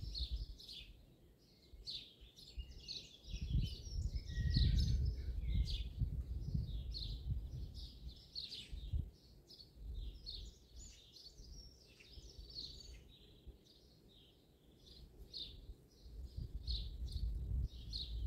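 Dawn chorus of several small songbirds: many quick, high chirps and twitters overlapping throughout. A low rumble swells and fades twice, louder than the birdsong.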